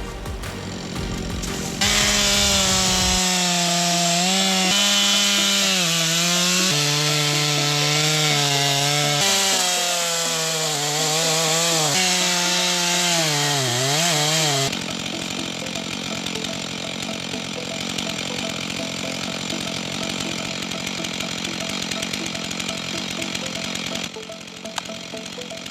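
Two-stroke chainsaw running at high revs, its pitch stepping and wavering as it cuts and sagging briefly before it drops away about 15 seconds in. A quieter, steady mechanical noise follows.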